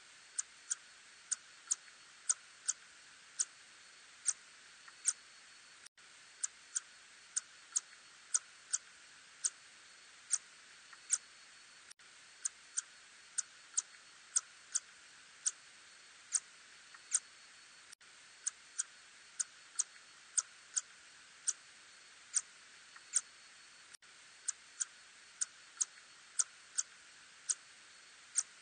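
Ussurian tube-nosed bat calls, heard as short sharp clicks about two a second at uneven spacing, over a steady hiss.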